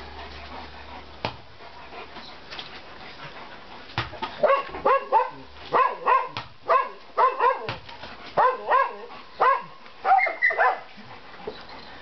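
Newfoundland dog barking excitedly at a ball held up out of its reach: play-demand barking. A fast run of short barks in quick bursts begins about four seconds in and stops shortly before the end.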